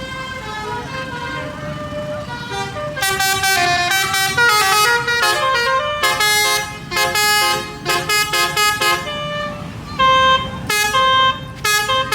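Indonesian bus 'telolet' musical horn playing quick stepped melodies of several notes, fainter at first and much louder from about three seconds in, in repeated bursts.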